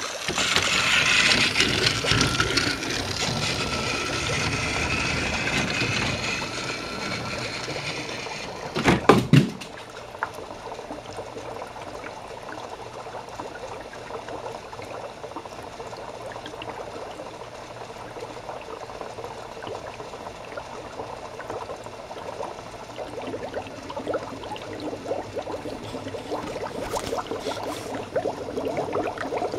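Dry ice bubbling in water, together with a battery-powered Trackmaster Thomas toy train running on plastic track, louder for the first several seconds. A few sharp knocks about nine seconds in.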